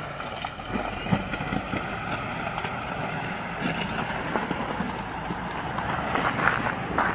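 Off-road truck engine running at low speed while crawling over rock, with scattered short clicks and crunches.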